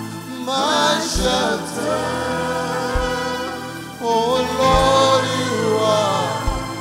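Slow gospel worship song sung live: a male lead voice with female backing singers over instrumental accompaniment, a soft low drum beat falling about every two seconds. The line being sung moves from "Oh Lord, you're my shelter" to "And Lord, you're my help".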